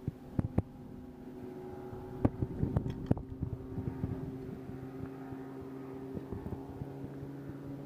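A boat motor running with a steady hum, with a few sharp clicks and knocks in the first three seconds from rod and tackle being handled on the boat deck.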